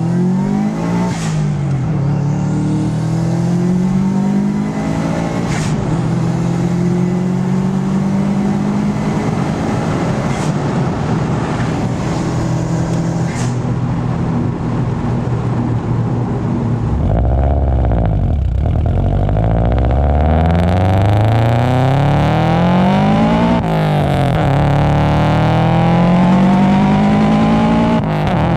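Turbocharged Subaru Impreza WRX flat-four engine revving up and down repeatedly, its pitch climbing and dropping over and over, with several brief sharp noises in the first half.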